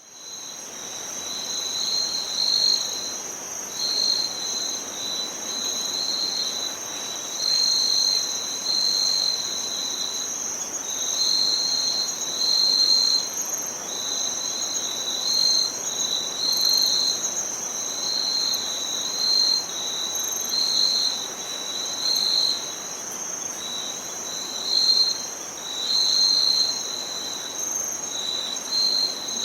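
Insects chirring: one steady high-pitched trill with a second, lower trill pulsing on and off in roughly one-second bursts over a faint outdoor hiss. The track fades in from silence at the start.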